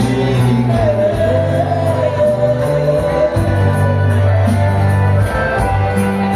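Live band music led by accordion, with held bass notes that change every second or so under a wavering melody line.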